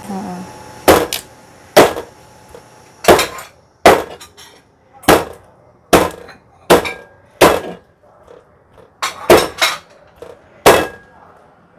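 Cleaver chopping a roast chicken into pieces on a cutting board: about a dozen sharp chops at uneven intervals of roughly a second, the blade striking the board with each cut.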